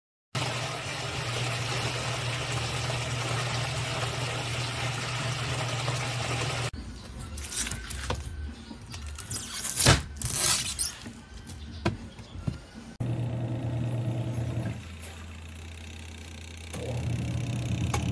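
Twin tub washing machine running: a steady motor hum with water churning in the tub, broken in the middle by a stretch of uneven splashing and knocks, the loudest about ten seconds in. The hum then comes back, drops lower for a couple of seconds, and rises again.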